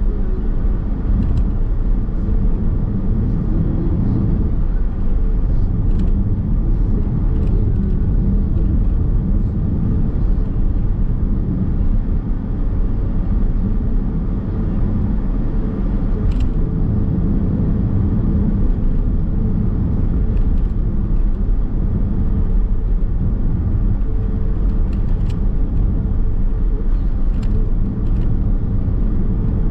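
Steady road and tyre rumble with a low drive hum inside the cabin of a moving Nissan X-Trail Hybrid, with faint small ticks now and then.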